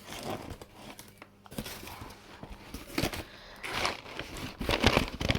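Packaging being handled and pulled apart by hand: irregular crinkling and tearing of wrapping, loudest near the end.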